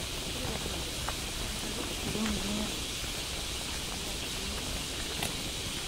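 Steady rustling ambience of a bamboo grove, with faint distant voices briefly about two seconds in.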